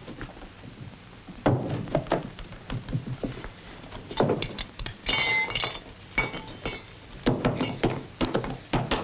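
Objects knocking and thudding on a wooden table as a suitcase is rummaged through, in a run of short irregular knocks. A brief squeak comes about five seconds in.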